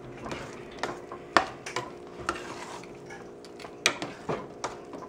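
A metal spoon stirring thick rava kitchadi in a stainless steel pot, scraping and knocking against the pot with irregular clicks, the loudest about one and a half and four seconds in. A faint steady hum runs underneath.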